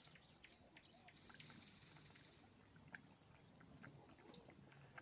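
Faint sucking and smacking of a baby European badger suckling milk from a feeding bottle: a quick run of small sucks in the first second and a half, then scattered soft clicks.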